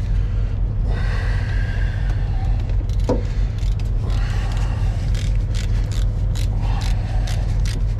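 Steady low rumble of an idling engine. From about halfway in it is joined by light metallic clicks and scrapes from hands working at the truck's battery cables and terminals.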